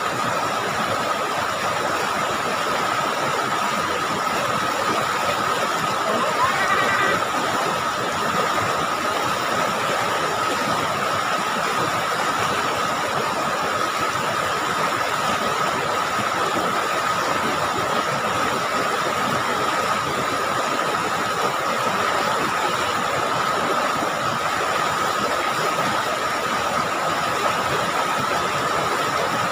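River rapids rushing steadily over rocks, with a steady high tone running through the noise.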